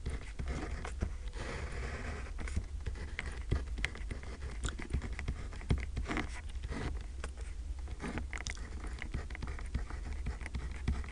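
Felt-tip marker writing on paper: irregular short scratching strokes and small taps as the letters and a fraction line are drawn.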